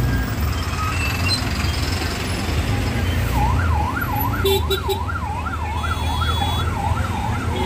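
Busy road traffic with the low rumble of a bus engine passing close by. About three seconds in, a siren-like warbling tone starts, rising and falling about three times a second.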